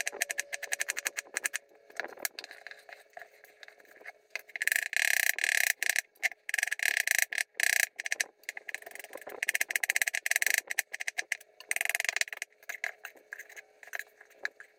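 Knife rapidly chopping an onion on a wooden cutting board: a fast run of sharp knocks, loudest and densest through the middle.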